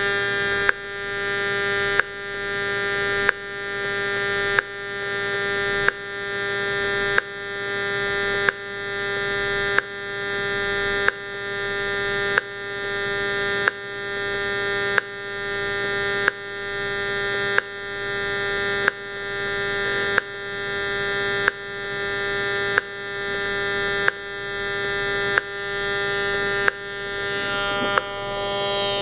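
Audio output of a handheld RF meter: a steady electronic buzz with a sharp click about every 1.3 seconds, the meter sounding pulsed wireless transmissions that the uploader attributes to a Fitbit tracker.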